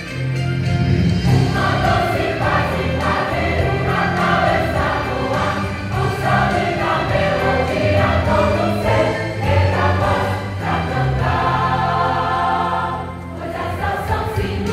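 Choir singing part of a Christmas cantata with instrumental accompaniment.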